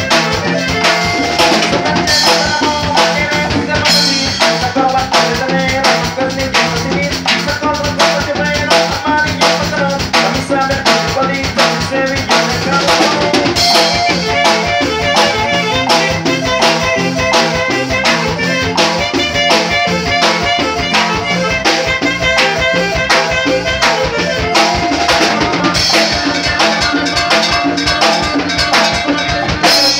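A small band playing live instrumental music on an electronic keyboard and a drum kit, with a steady, even beat.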